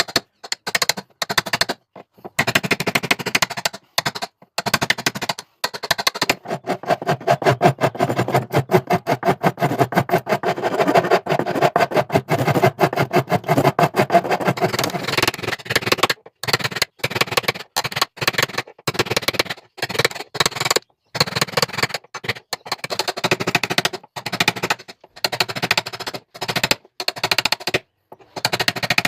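Rapid, repeated knocking of a tool cutting into pallet wood to make the recess for a door hinge, stopping and starting several times.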